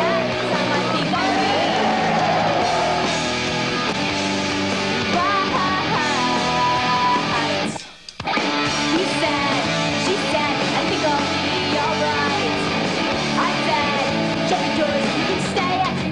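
Guitar-driven rock music soundtrack, cutting out briefly about halfway through before the music comes back.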